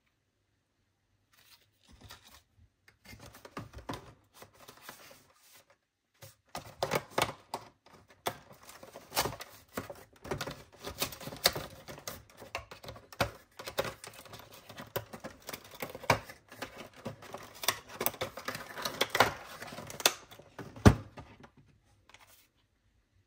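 Paper earring cards and the plastic tray of an advent calendar being handled: a run of clicks, rustles and crinkles, busier from about six seconds in, with one sharp click near the end.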